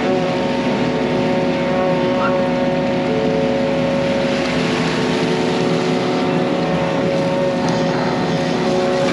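Yanmar mini excavator's diesel engine running steadily, with a constant hiss of noise underneath.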